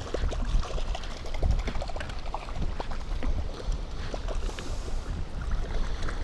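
Water splashing and sloshing at the side of a fishing boat, with a low wind rumble on the microphone.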